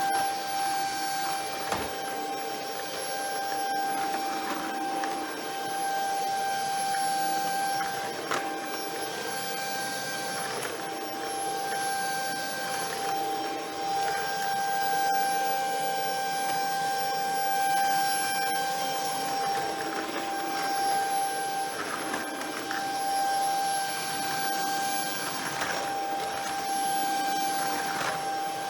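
Shark Ion F80 cordless stick vacuum running steadily with a high-pitched motor whine over a constant rush of air, swelling and easing a little as it is pushed about. A few light knocks.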